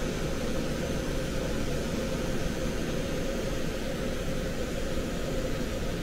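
Heat pump air handler's PSC blower motor running steadily: an even whoosh of moving air with a low hum and a faint steady tone.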